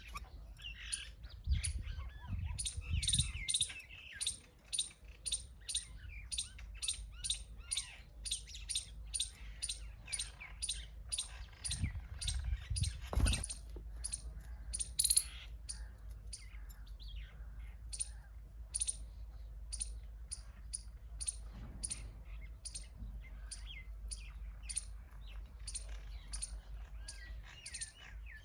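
Small birds chirping: a long run of short, very high chirps, about two a second, with a faint low rumble in places.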